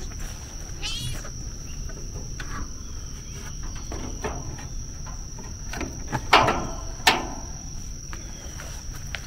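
A steady high-pitched insect drone, with two thuds about six and seven seconds in as a cat jumps down from a wooden shelf onto the plank floor of its enclosure.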